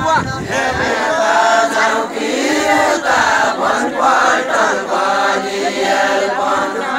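Deuda folk song sung by a group of voices together in a chant-like, wavering melody, with no instruments.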